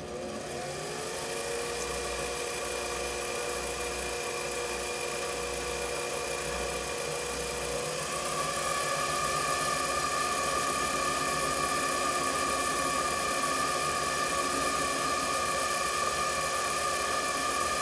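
Mini lathe starting up and running with a steady motor-and-gear whine while facing the end of a small bushing. About eight seconds in the whine shifts to a higher tone and gets a little louder.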